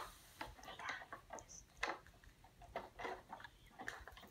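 Faint, scattered light clicks and taps of plastic toy pieces being handled.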